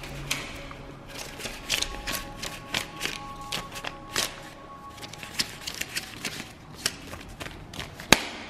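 A stack of US dollar banknotes being counted by hand, the paper bills flicked one after another in quick crisp snaps, a few a second. One sharper, louder snap comes near the end.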